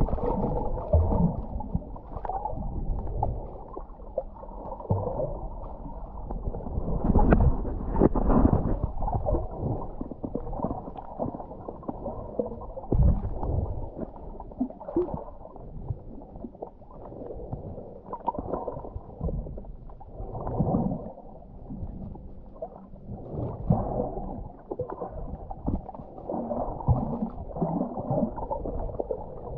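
Muffled water sloshing and gurgling as heard underwater, swelling and fading irregularly, with dull thuds now and then.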